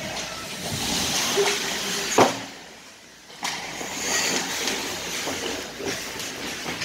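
Ice hockey play on the rink: skates scraping the ice and sticks clacking, with one sharp bang about two seconds in.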